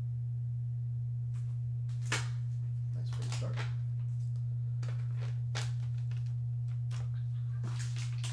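A steady low hum runs throughout and is the loudest sound, with light clicks and rustles of cards and packaging being handled on a tabletop; a sharp click about two seconds in.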